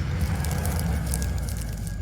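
Tail of an intro sound effect: a low rumble with scattered crackling, slowly fading.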